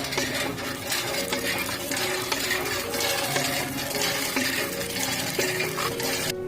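Background music with a steady splashing noise over it, like running water, which cuts off suddenly near the end.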